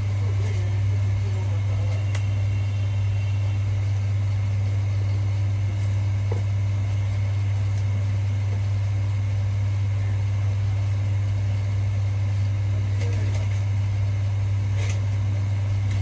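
A steady low hum, with a few faint clicks and rustles as sneakers and tissue paper are handled.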